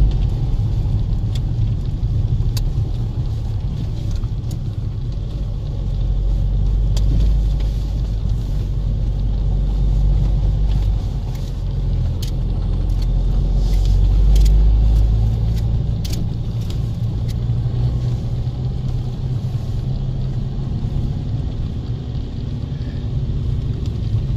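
Car driving uphill, heard from inside the cabin: a steady low rumble of engine and tyres that swells now and then, with faint light clicks and rattles from inside the car.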